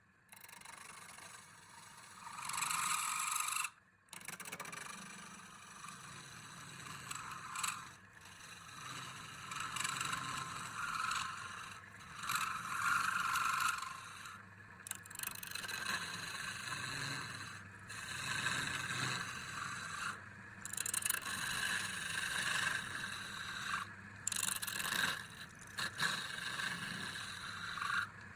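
Hand tools scraping and rubbing on wood, in a string of short takes broken by abrupt cuts every few seconds.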